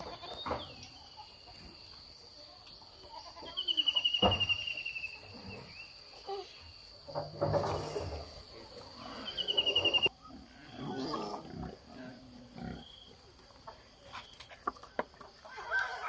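Farmyard of pigs and goats: scattered animal grunts and calls, with a rougher, louder grunt about halfway through. Twice, a short, rapid high trill stands out above them, and a faint steady high tone runs underneath.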